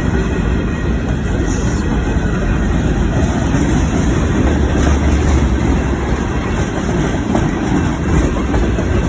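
A train running, a loud steady rumble.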